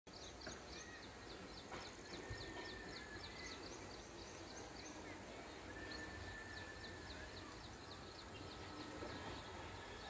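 Faint outdoor ambience with a bird calling a long series of short, high, falling chirps at about three a second, pausing briefly midway before starting again.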